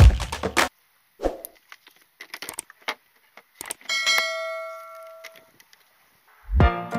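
A subscribe-button sound effect: a few soft clicks, then a single bell ding about four seconds in that rings out and fades over about a second and a half. Drum-backed music stops just under a second in and starts again near the end.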